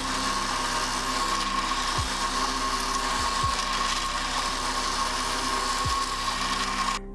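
Power tool running steadily under load, a hissing noise with a steady high whine, as when metal is machined. It cuts off abruptly near the end.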